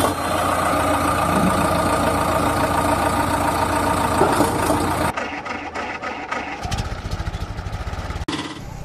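Engine running steadily. About five seconds in the sound changes to a lower, rapidly chugging engine beat, which cuts off abruptly shortly before the end.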